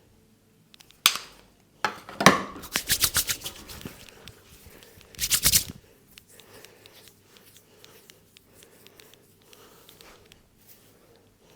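Hands slapping in quick percussive head-massage strokes: a couple of single sharp slaps, then a fast run of claps for a second or two, and a short dense burst of them before it goes quiet.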